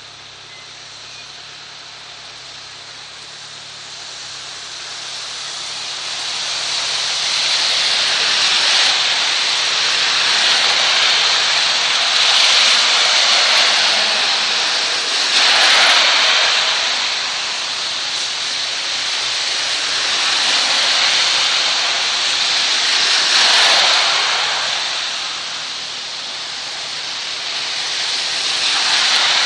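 Heavy rain pouring down, with tyres hissing through water on a wet road as several cars pass. Each pass is a swelling, fading rush of spray over the rain, and the sound builds over the first several seconds.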